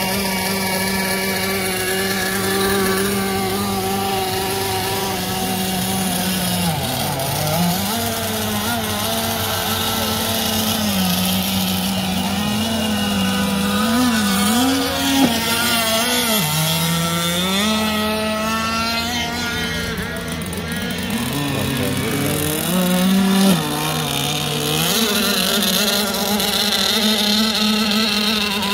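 Gas-powered 1/6-scale RC race boats running at speed, their small two-stroke engines giving a steady high buzz whose pitch dips and climbs back several times as they go around the buoys.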